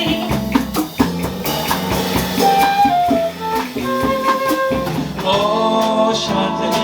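Live Dixieland jazz band playing an instrumental passage: held horn melody notes over a steady drum-kit beat.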